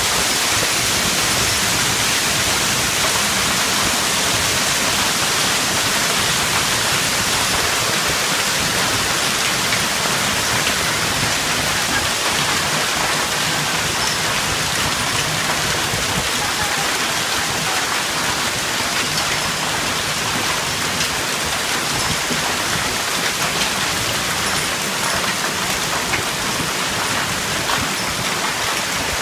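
Heavy hailstorm: hail falling hard with rain, a dense steady hiss of many small impacts.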